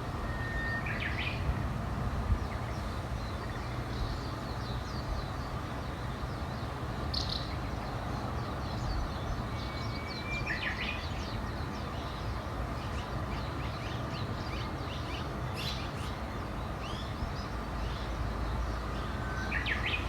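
Birds singing: one bird repeats a phrase three times, about ten seconds apart, each a held whistled note followed by a quick run of higher notes, with short chirps from other birds between. A steady low rumble runs underneath.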